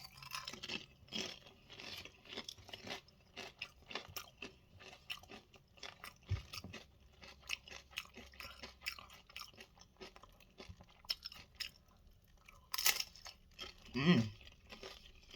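A person chewing crisp tortilla-chip nachos topped with melted cheese and salsa: a string of irregular crunches.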